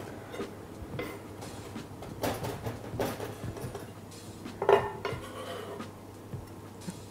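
Chef's knife finely chopping parsley on a plastic cutting board: irregular knife strokes knocking on the board, with one louder strike about halfway through.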